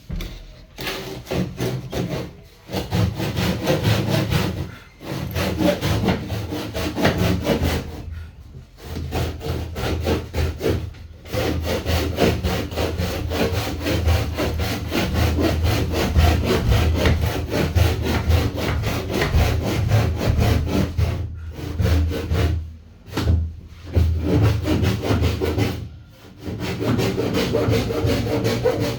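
Wood being sawn in several long runs, each broken by a short pause.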